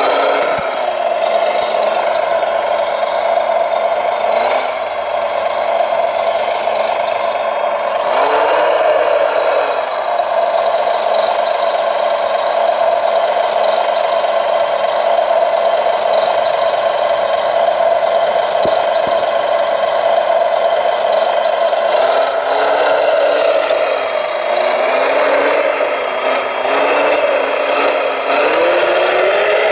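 Radio-controlled wheel loader's hydraulic pump and electric motors whirring steadily as its arm and grapple fork work a boulder onto a trailer. The pitch rises and falls several times as the arm is moved.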